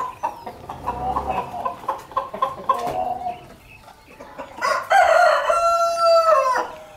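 Aseel chickens clucking in short repeated calls, then a rooster crows once, a steady call about two seconds long, starting about five seconds in.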